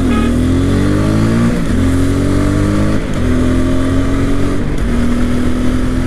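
TVS Apache RTR 200's single-cylinder engine and exhaust accelerating through the gears: the revs climb, then drop sharply at each of three upshifts, about a second and a half apart, before holding steady.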